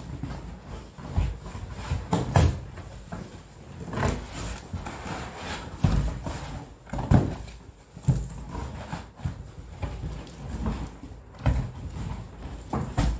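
Large cardboard box being opened and rummaged through by hand: flaps and cardboard rubbing and scraping, with irregular knocks and rustles as the items inside are shifted.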